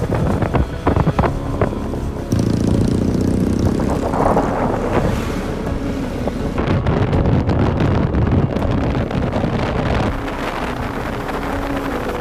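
Motorcycle engines running, with wind rushing over the microphone; a few sharp knocks early on, then a steady engine-and-wind noise.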